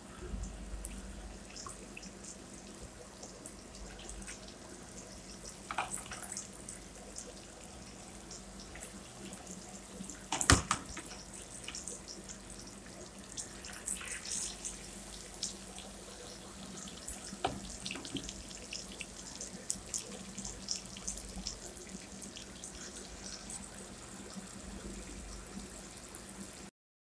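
Whole fish frying in hot oil in a karahi: steady sizzling with scattered crackles and pops. There is one sharp knock about ten seconds in.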